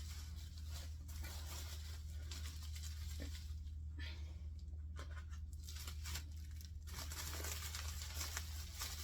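Packing material crinkling and tearing in irregular bursts as things are wrapped for a moving box, busier near the end, over a steady low hum.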